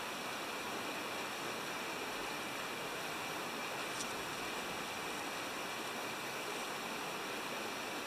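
Steady rushing of a river or stream, an even wash of water noise, with one faint click about halfway through.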